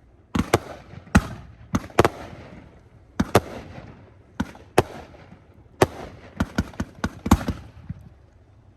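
Aerial fireworks from a fired cue going off one after another: about fifteen sharp bangs, irregularly spaced at roughly two a second, each with a short echoing tail.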